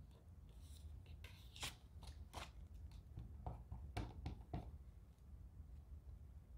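Faint handling sounds: paper being moved, then a few soft taps as a clear-block rubber stamp is inked on an ink pad and pressed onto an envelope.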